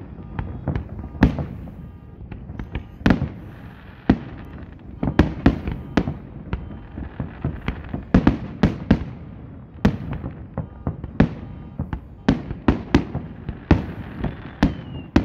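Aerial fireworks bursting in a rapid, irregular string of sharp bangs that come thicker and faster in the second half.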